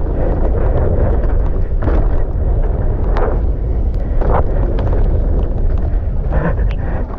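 Wind rumbling on the camera microphone as a downhill mountain bike rolls fast down a wet dirt track. A few sharp knocks and rattles come from the bike going over bumps.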